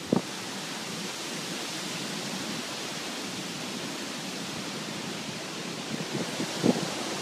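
Steady, even hiss, with a few faint short knocks about six seconds in.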